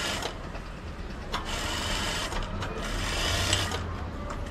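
ZOJE industrial sewing machine stitching a sports jersey, running in several short runs that start and stop, with a steady low hum underneath.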